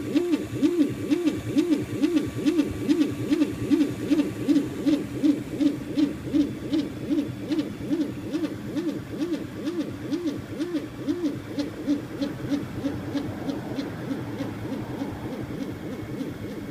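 3D printer's stepper motors whining in quick back-and-forth moves, the pitch rising and falling with each stroke about two to three times a second, with light ticks. After about twelve seconds the strokes give way to a steadier, quieter hum.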